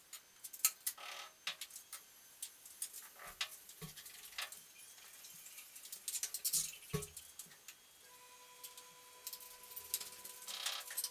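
Scattered light clicks, taps and scrapes of hand bricklaying work, trowel and bricks being handled, with a couple of duller knocks. A faint steady tone comes in about two-thirds of the way through.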